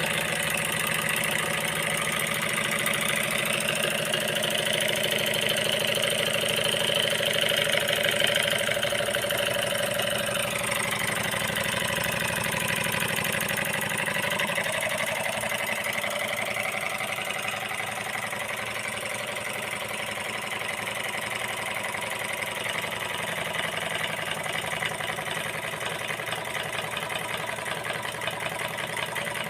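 Small Stirling engine running steadily with a fast mechanical clatter. A whine rises and falls in pitch in the first half.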